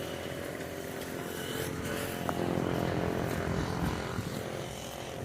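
A motor engine running with a steady hum, growing louder about two seconds in and then fading again.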